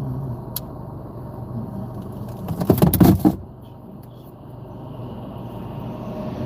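Steady low rumble of a vehicle on a highway, broken a little before halfway by a loud burst of rapid knocks and clatter that lasts under a second.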